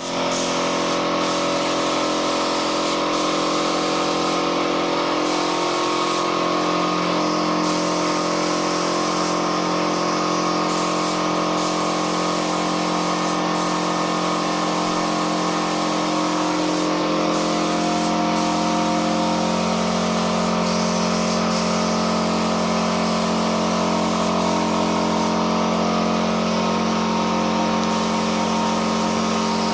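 Spray gun hissing steadily as it sprays clear PU polish, over a steady machine hum whose pitch shifts slightly about two-thirds of the way through.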